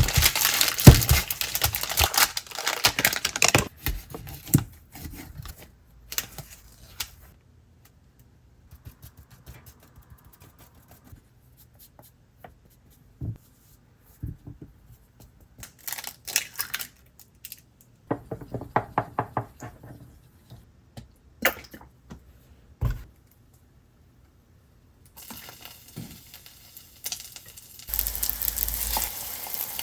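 Kitchen handling sounds: scattered knocks and clatter of dishes, with rustling and crinkling of packaging in several bursts. A steady hiss begins near the end.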